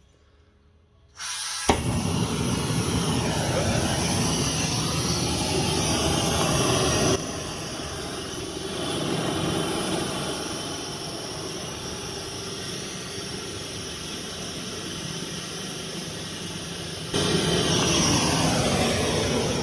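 Gas torch lit with a click about a second and a half in, then burning with a steady rushing hiss while heating a seized radiator-support nut to free it. The hiss drops in level about 7 s in and comes back up near the end.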